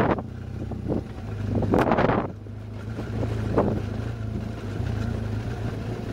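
Adventure motorcycle engine running steadily at low road speed, with gusts of wind noise on the microphone, the strongest about two seconds in.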